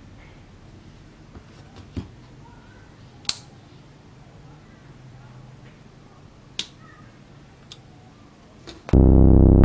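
A few sharp, separate clicks and taps from hands handling smartphones and a homemade power bank, over faint room noise. Loud electronic music with a beat starts suddenly near the end.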